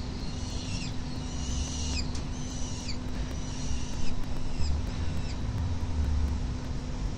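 Peregrine falcon chicks begging with high-pitched, drawn-out calls as they are fed, several in quick succession in the first three seconds, then fainter ones, over a low rumble.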